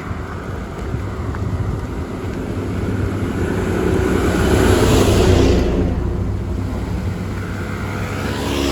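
A car passing close by on the road, rising to its loudest about five seconds in and then fading, with another vehicle coming up near the end. Wind rumbles on the microphone throughout.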